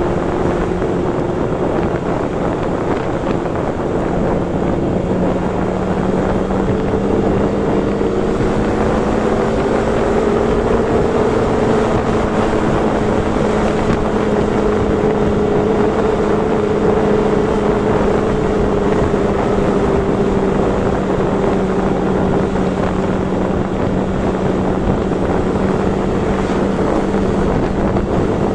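Motorcycle engine running at a steady cruise, its hum rising a little in pitch about seven seconds in and then holding, under heavy wind noise on the microphone.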